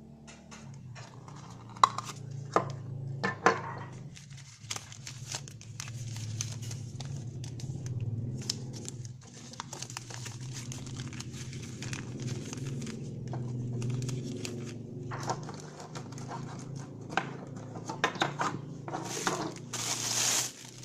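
Thin clear plastic bag crinkling and rustling as a wristwatch is handled and unwrapped, with sharp clicks and knocks of handled plastic a couple of seconds in and the densest crinkling near the end.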